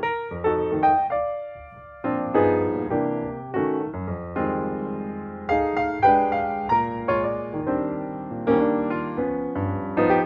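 Background music: piano (electric-piano-like) chords struck in a steady rhythm, each note fading after it is played.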